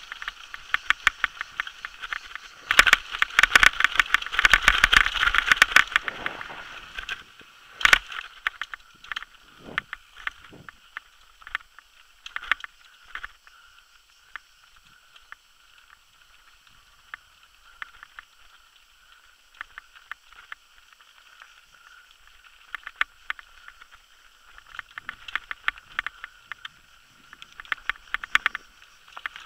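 Downhill mountain bike rattling and clattering over a rocky dirt trail. A dense run of rapid hits comes a few seconds in, then one sharp knock. The middle is quieter with only sparse clicks, and scattered clicks pick up again near the end.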